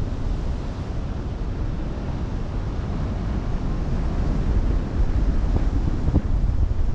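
Wind rumbling steadily on the microphone over the wash of open-sea waves.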